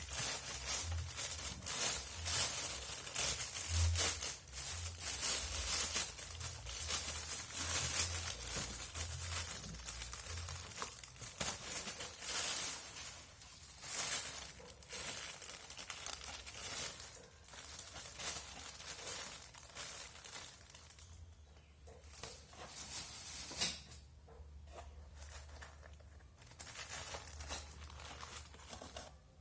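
Packaging of a BM 800 condenser microphone crinkling and rustling as it is unwrapped and handled. The crackles come in irregular bursts, busiest in the first half and thinning out later.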